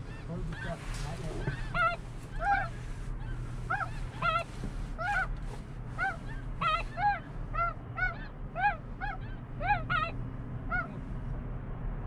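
Snow geese calling: a continuous, uneven run of high honks, each rising and falling in pitch, about two a second.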